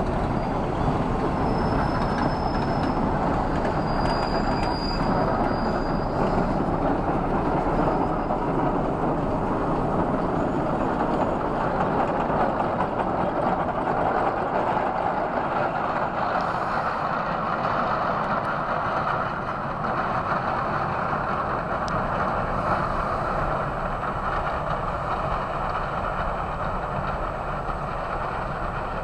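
Shay geared steam locomotives working hard up a grade, pulling a passing passenger train: steady exhaust and running-gear noise with the rumble of the cars, easing slightly near the end as the train moves off.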